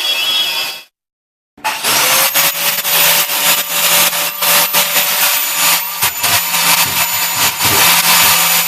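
Power tool, likely an angle grinder, cutting into the steel of an air tank. A harsh grinding noise cuts off just under a second in; after a short silence the motor spins up with a rising whine and grinds on steadily with a harsh, scraping hiss.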